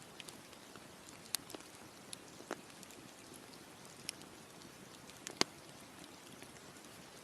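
Wood campfire crackling: scattered sharp pops and snaps over a soft steady hiss, the loudest pop about five seconds in.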